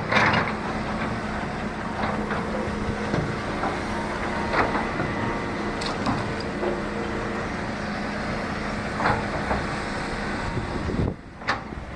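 Excavator's diesel engine running steadily during house demolition, with a few scattered sharp knocks and cracks.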